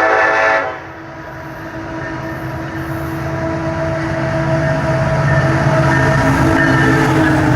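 Diesel freight locomotives' air horn sounding a chord that cuts off under a second in, then the locomotives' engine drone and train rumble growing steadily louder as the train approaches at speed.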